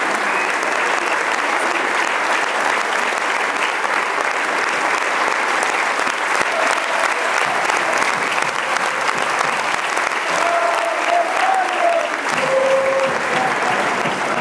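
Football stadium crowd applauding, a dense steady clapping, with a few voices calling out over it past the middle.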